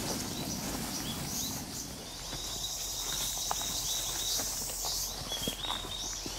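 Footsteps crunching on a forest floor of leaf litter and twigs. A high, steady insect buzz comes in about two seconds in and stops near the end.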